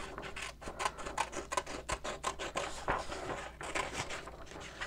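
Scissors cutting a circle out of a sheet of paper: a quick, irregular run of short snips.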